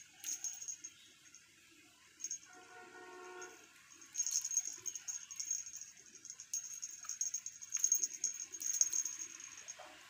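Cat wand toy jingling and rattling in bursts as kittens bat and bite at it, a thin high ringing with many small clicks. It is loudest from about four seconds in.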